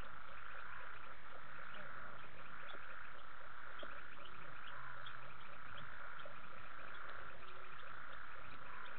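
Night chorus of frogs and insects: a steady buzzing drone with many short clicking calls over it.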